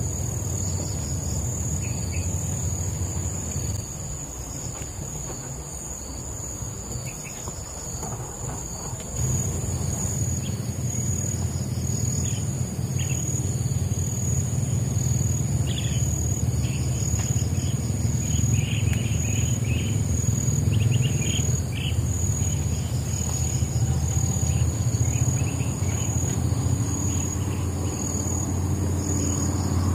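Steady high-pitched drone of insects along a tropical riverbank, with scattered short chirps in the middle. Under it runs a low rumble that grows louder about nine seconds in.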